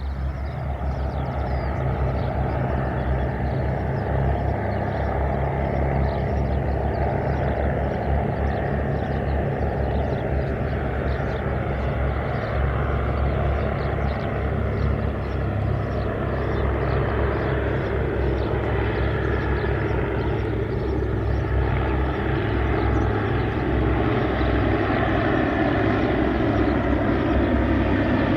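WW1-era aircraft piston engine and propeller running steadily, with a fast, even firing beat. It gets a little louder near the end.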